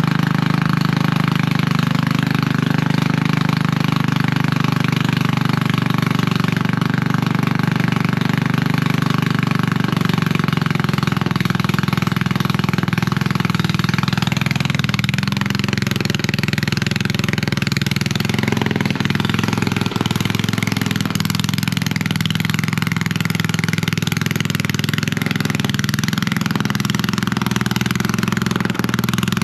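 Straight-piped ride-on lawn mower engine running steadily and loud, its open exhaust giving a rapid, even pulsing.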